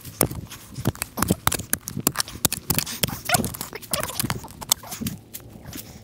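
Digging into forest soil with a hand spade: a quick, irregular run of stabs, scrapes and crunches through earth and dry leaf litter, easing off near the end.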